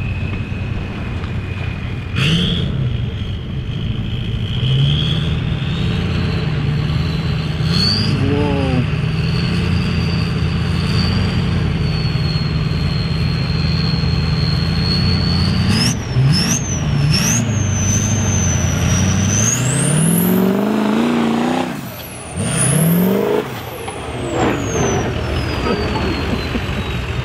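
Mega truck's engine pushing through deep water, running steadily under load, then revving in short blips and two long hard climbs in pitch in the second half. A high whine rises with each rev and slowly winds down after the last one.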